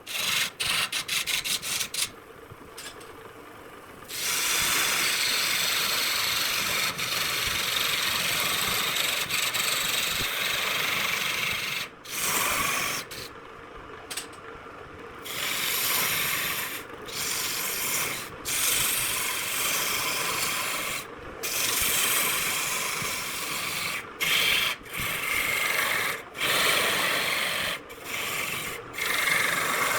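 Abrasive rubbing on wood: a steady, hissing rasp that cuts off and restarts abruptly many times.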